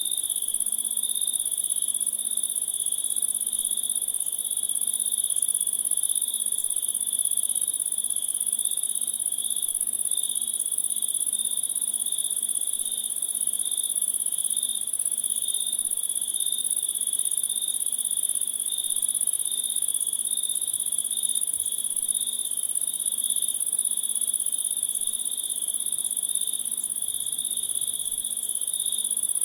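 Chorus of insects trilling without a break: a steady very high-pitched trill with a second, lower trill that pulses quickly.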